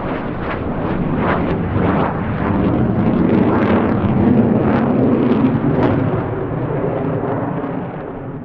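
F-35A Lightning II jet engine noise passing overhead in the landing pattern, a loud rumble full of crackle, loudest in the middle and fading near the end.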